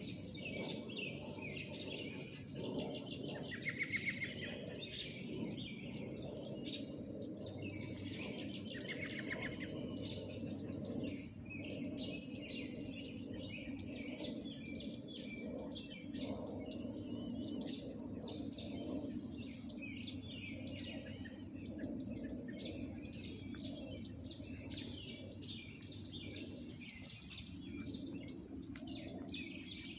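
Many songbirds chirping and singing at once, with two short rapid trills about 4 and 9 seconds in, over a steady low background hum.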